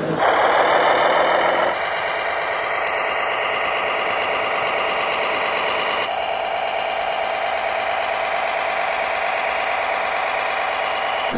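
Radio-controlled model tractors working soil, giving a steady engine-like running sound. It is louder for the first couple of seconds and changes in tone about halfway through, when the second tractor takes over.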